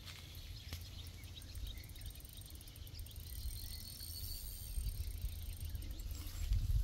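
Outdoor pond-side ambience: wind buffeting the microphone in an uneven low rumble, over a steady high insect buzz and a few faint chirps. The rumble swells near the end.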